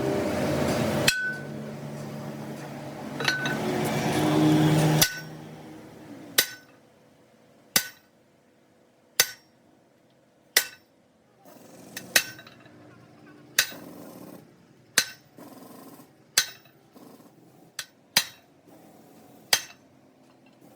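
A loud steady noise for about the first five seconds stops abruptly, then a hammer strikes metal at an even pace, about one blow every second and a half, each with a short metallic ring.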